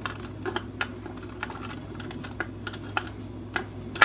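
Irregular light clicks and clatter of small thin cutting dies being handled and sorted through by hand in their box, with a sharper click near the end.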